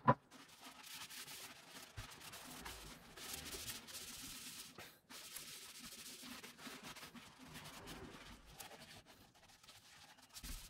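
Cloth wiping and rubbing around the inside of a metal cryopump housing, a faint, uneven scrubbing. A brief thump comes at the very start.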